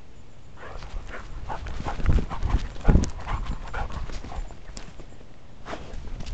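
A dog running, with quick irregular knocks and rattles from its footfalls and the camera strapped to its back, and two heavier thumps about two and three seconds in.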